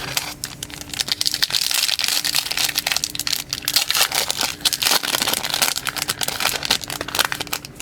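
Wrapper of a trading-card pack crinkling as it is handled and opened, a dense run of fine crackles.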